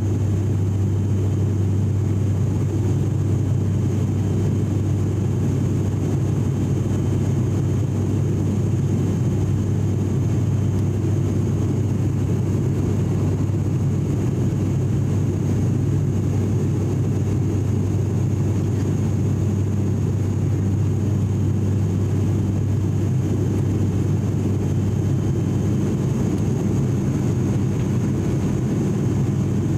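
Cabin sound of an ATR42-600's turboprop engine and six-blade propeller in flight, heard from a window seat beside the propeller: a steady, loud drone led by a strong low hum, with a faint high whine above it.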